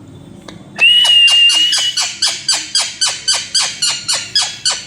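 Pet parrot calling: about a second in, a loud call with a held whistle-like note, running into a rapid string of short, harsh, downward-sweeping calls, about four a second.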